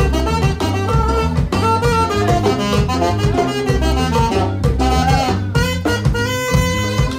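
Live band music: an alto saxophone plays a melody over keyboard accompaniment with a steady bass and beat, holding long notes near the end.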